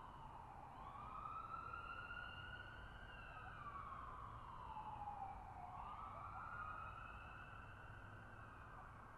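Emergency vehicle siren in a slow wail, its pitch rising and falling twice, faint, over a low steady rumble.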